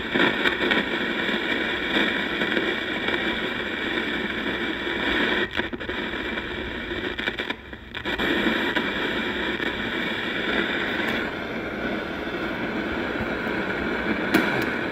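Steady hiss from the small built-in speaker of a Wynford Hall NSI-70R AM/FM radio cassette recorder, coming on suddenly, with brief dropouts about five and a half and eight seconds in. Its top end thins out about eleven seconds in.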